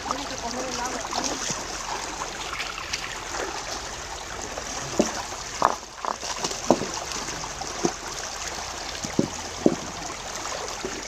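Shallow rocky stream flowing steadily, with water being stirred by hands and feet. From about halfway through comes a run of short, sharp splashes and knocks, about eight, as stones are shifted by hand in the water.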